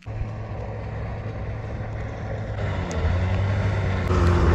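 A motor vehicle's engine running steadily with a low hum, starting abruptly and growing louder about three and four seconds in.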